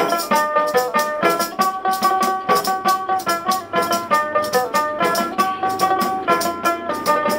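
Instrumental break in a Bengali folk song. A plucked long-necked lute plays the melody over a jingling frame drum and a shaker keeping a steady, even beat.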